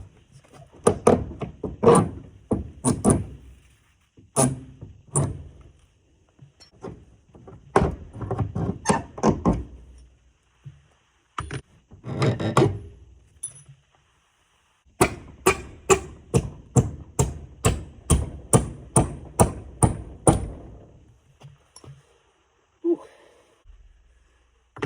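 Hammer blows on the old bent-over nail tips of a wooden barn door, knocking them up to be pulled out. The blows come in several runs separated by short pauses, the longest run steady at about two blows a second.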